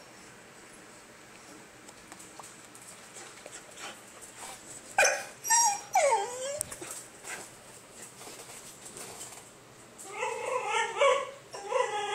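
Basenji dog making its odd yodel-like vocalizations in place of a bark. Two sharp calls come about halfway through, the second sliding down in pitch, then a wavering, warbling call starts near the end. This is the noise the dog uses to ask for attention, to play or to be let out to pee.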